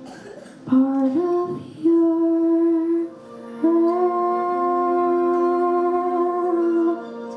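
A young female soloist singing into a microphone, amplified in a hall: a few short notes, then a held note and a longer sustained note, over soft sustained accompaniment.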